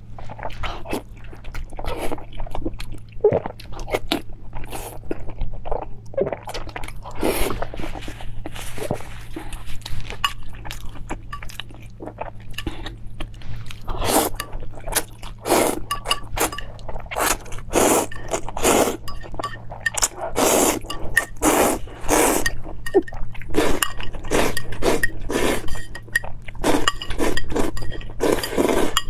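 Close-miked eating sounds: chewing, then saucy noodles slurped in quick repeated pulls, louder and more frequent from about halfway, with light clinks of chopsticks on a metal plate.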